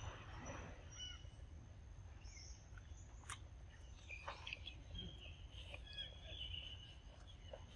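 Quiet outdoor ambience: a steady low rumble, with faint high chirps, mostly in the second half, and a few soft clicks.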